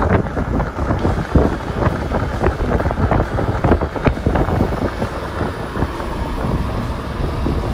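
Wind rumbling and buffeting against a phone's microphone, with many irregular short thumps.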